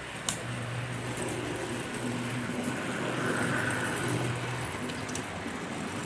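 Model train locomotive's small electric motor running with a steady hum that swells and eases as it runs along the track, with a sharp click just after the start.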